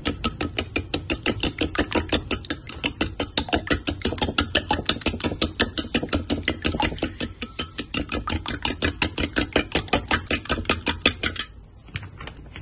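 Steel spoon clinking rapidly against a glass bowl while two raw eggs are beaten, about five clicks a second, stopping about a second before the end.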